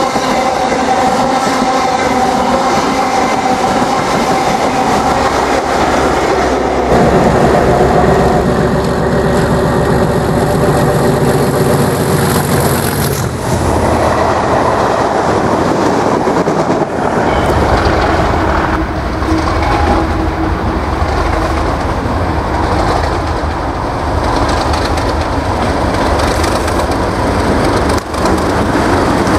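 Trains passing close by in three successive clips: a passenger train running through a station, a Network Rail test train, then Direct Rail Services Class 37 diesel locomotive 37425 hauling test-train coaches. The Class 37's English Electric diesel engine's low, heavy sound takes over about two-thirds of the way in.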